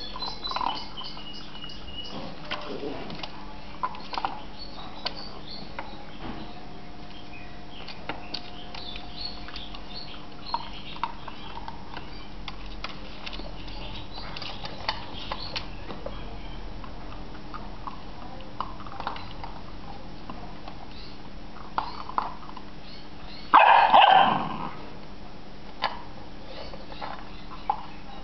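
A puppy eating from a bowl, with small scattered clicks of kibble and bowl over a low steady hum. About 24 seconds in, a puppy barks once, loudly, for about a second.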